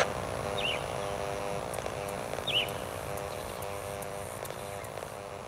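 Outdoor wildlife calls: a low chirping call repeated in short even pulses, with two brief high falling bird chirps.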